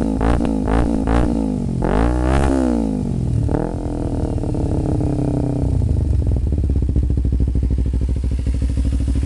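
Kawasaki Ninja 250R's parallel-twin engine through a Musarri slip-on exhaust. The throttle is blipped in quick revs, about three a second, with one longer rev about two seconds in, and then the engine settles to a steady idle for the second half.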